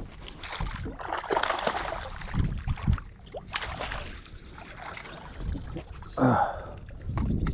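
Irregular splashing of water and knocks of handling, with a short voice sound about six seconds in.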